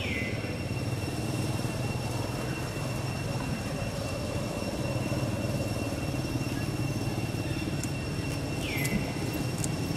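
A steady low rumble, with a thin high whine held throughout. Two short falling squeaks come through, one at the very start and one about nine seconds in, with a few faint ticks near the end.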